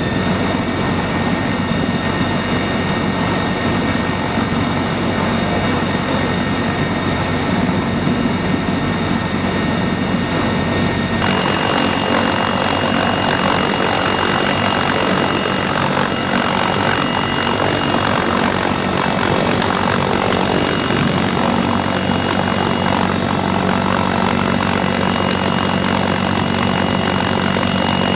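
Steady, loud cabin noise of a three-engine CH-53E Super Stallion helicopter: turbine and transmission whine over the rotor's drone. About eleven seconds in, the sound shifts to a fuller rushing noise with a different whine.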